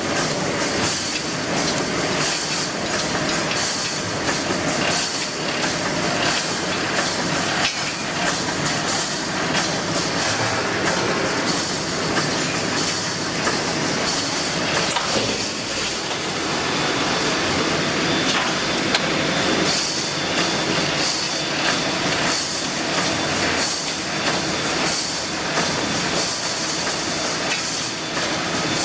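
Full automatic wire mesh panel welding machine running, a steady dense clatter with a hiss over it.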